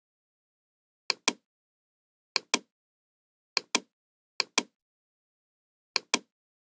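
Computer mouse clicked five times, each click heard as a pair of sharp ticks about a fifth of a second apart, with silence between the clicks.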